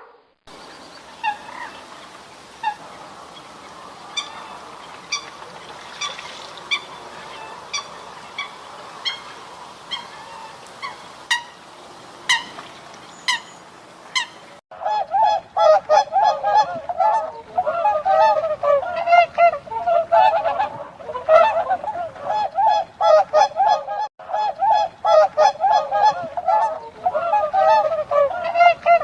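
A flock of waterfowl honking, many calls overlapping in a dense, continuous chorus that starts abruptly about halfway in. Before that, scattered short high chirps over a faint hiss.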